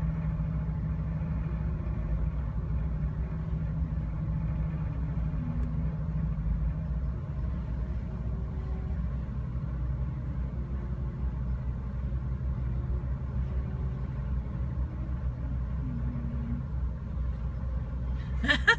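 Ferry engine running with a steady low drone, heard from a parked car on the vehicle deck; its pitch drops a little about seven seconds in.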